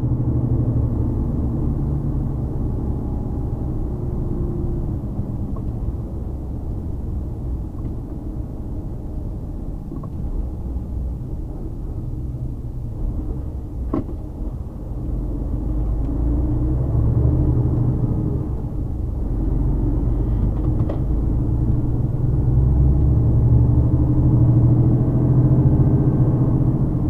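Mercedes Actros truck's 12.8-litre inline-six diesel engine running under way with heavy road rumble, its note rising and falling and growing louder in the second half. Two short clicks, about 14 and 21 seconds in.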